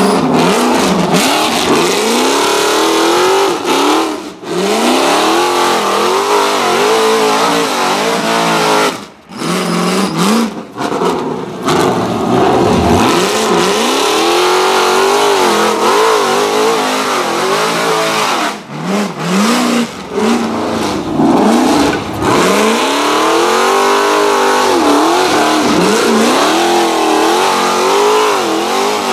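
Rock bouncer race buggy's engine revving hard under load on a hill climb. Its pitch rises and falls again and again as the throttle is worked, with a few sudden short drops.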